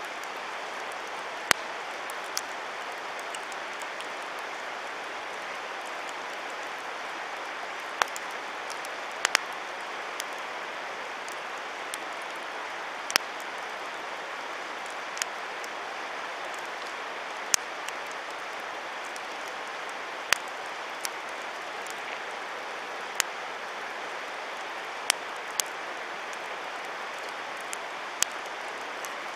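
Wood campfire burning, with sharp, irregular pops and cracks every second or few seconds over a steady rushing hiss.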